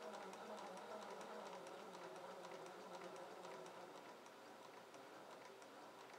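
Sewing machine driven by a Unitemotor MY6812A 12 V DC motor running slowly at the low end of its speed range: a faint motor hum sinking in pitch under light, even mechanical ticks a few times a second. The whole sound fades gradually.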